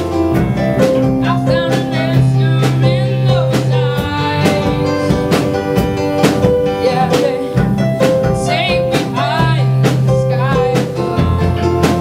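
A band playing a song: a singing voice with vibrato over guitar, bass and a drum kit keeping a steady beat.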